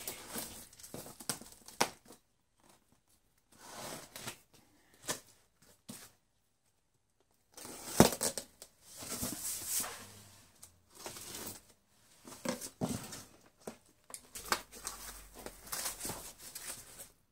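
Packing tape tearing off a cardboard box, then cardboard flaps and a paper-and-foam packing sheet rustling as the box is opened. The sounds come in irregular bursts with short pauses, and a sharp snap about halfway through.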